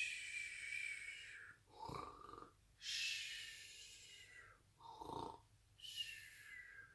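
A person imitating a bear's snoring: two short, deep snorts alternating with three long, whistling breaths that fall slightly in pitch.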